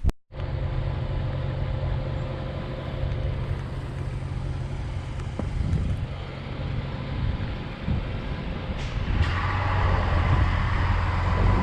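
A car on the move: a steady low engine hum with road noise, the hiss growing stronger about nine seconds in.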